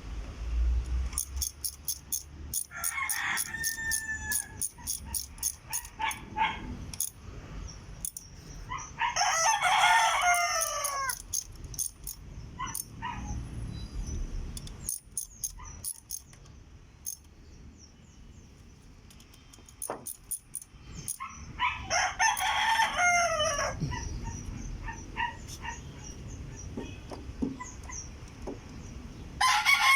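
Rooster crowing about four times, each a long call falling at its end, with a quick run of sharp clicks and taps in the first several seconds.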